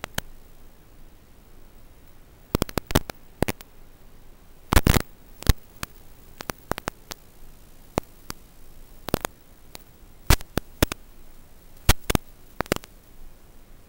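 Steady static hiss broken by irregular sharp crackles and pops, the loudest cluster about five seconds in: the audio channel of an analog FPV video receiver, crackling as the drone's video signal breaks up.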